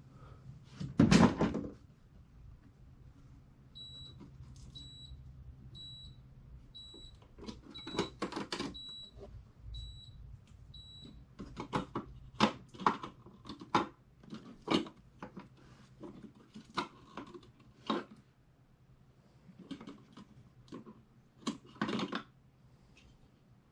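A thump, then a run of short high beeps about once a second from a Pelonis dehumidifier's touch control panel as its buttons are pressed, followed by a series of clicks and taps. A low steady hum runs under the beeps and fades out about halfway through.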